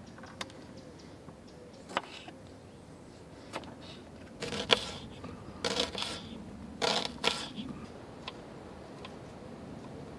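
Kitchen knife cutting on a wooden chopping board, slicing through a red onion: a few sparse taps, then three quick clusters of louder cuts in the middle.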